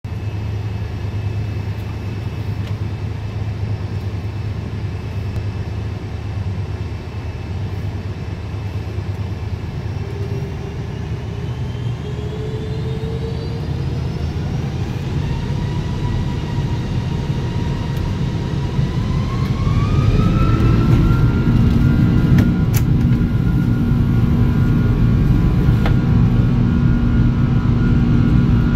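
Boeing 747-400's four Rolls-Royce RB211 turbofans heard inside the upper-deck cabin: a steady low rumble while taxiing, then from about ten seconds in a rising whine as the engines spool up. The sound grows louder and settles into a steady, higher-pitched hum about twenty seconds in.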